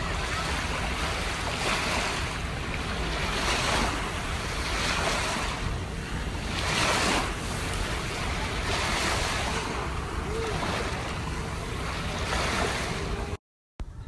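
Small sea waves breaking and washing up over a sandy beach, the surf swelling and easing every second or two. It cuts off abruptly near the end.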